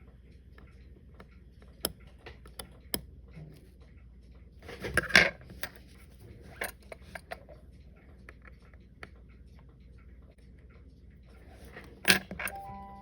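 Light metallic clicks and clinks of small parts and tools being handled during disassembly of a Citizen Leopard Diver watch, with a louder cluster of clinks about five seconds in and again near the end.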